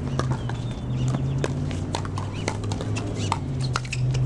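Pickleball paddles striking a plastic ball in a rally: a quick, irregular series of sharp, hollow pops, several a second, over a steady low hum.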